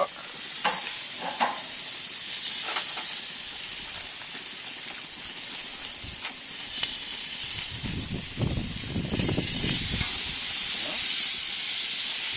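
Marinated chicken sizzling on the hot grates of a gas grill on high: a steady high hiss that grows louder about ten seconds in as the meat is laid on. A few light clicks and the rustle of the plastic marinade bag come in between.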